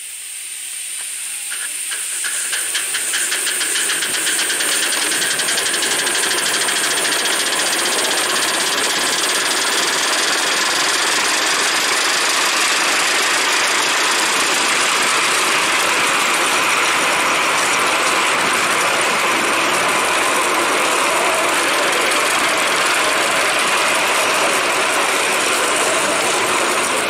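Simplex 0-6-0 5-inch gauge live steam tank locomotive pulling away. Its exhaust beats quicken over the first few seconds and merge into a steady hissing run that grows louder and then holds.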